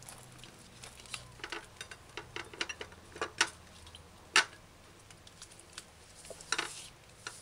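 Scattered, irregular clicks and knocks of a kitchen knife and vegetables being handled on a plastic cutting board, the loudest a sharp knock about four and a half seconds in.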